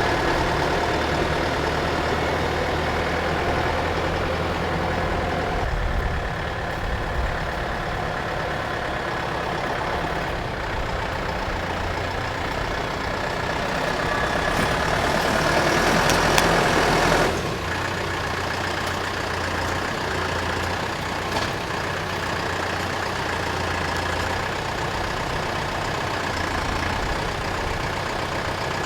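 Skid steer loader engine running steadily while it works a stump bucket. The engine swells a little past halfway, then drops back sharply.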